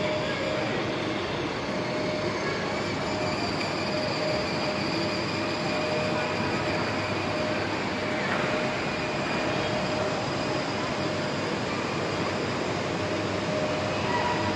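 Battery-powered ride-on toy jeep driving: the steady whir of its electric drive motors and the rumble of its plastic wheels rolling over a tiled floor.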